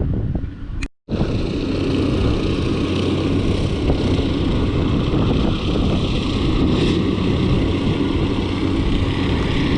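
An engine running steadily under way, a low drone with rushing noise over it, breaking off for a moment about a second in.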